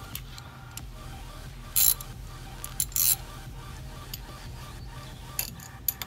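Scattered clicks, taps and short scrapes from handling a billet exhaust tip on the tailpipe and a ratchet with a hex-bit socket while its set screws are fitted, over a steady low hum.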